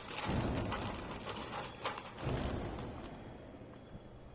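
Handling noise of a network cable's wires and an RJ45 connector: rustling with a few light clicks and taps, as the wires are sorted and fed into the connector.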